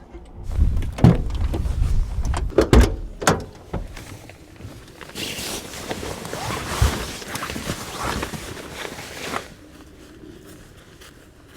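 Several sharp knocks and thuds in the first few seconds, then a few seconds of rustling or scraping that stops abruptly.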